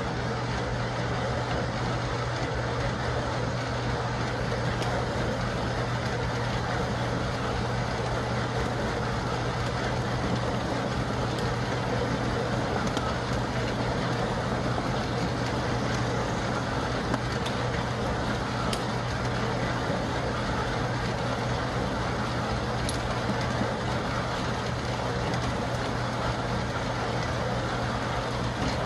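Motor-driven compost trommel running steadily: a constant low hum under a dense, even noise as compost tumbles through the rotating wire-mesh screen drum.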